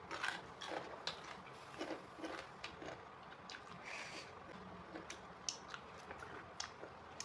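A person chewing and biting food close to the microphone: a run of irregular short clicks and mouth smacks.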